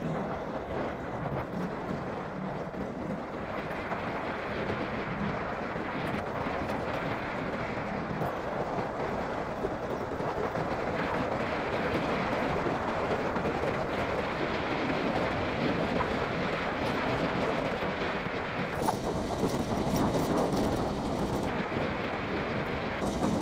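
Honda CB150R motorcycle running at road speed: a steady rush of wind and engine noise, growing a little louder about halfway through.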